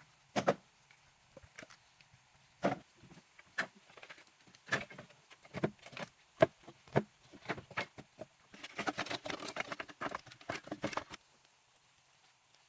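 A series of irregular knocks and taps, then a quick, dense flurry of them that stops suddenly about three-quarters of the way through.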